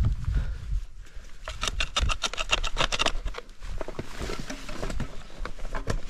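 Ice axe scraping and clinking against rock during a climb: a run of quick scrapes and knocks, densest from about a second and a half to three seconds in, with more scattered clicks after.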